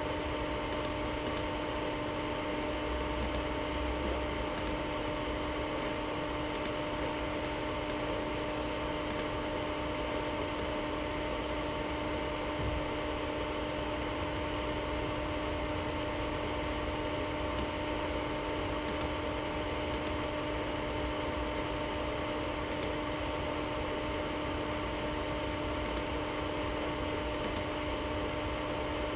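Steady hiss and electrical hum between radio transmissions, with faint light ticks about every one and a half seconds.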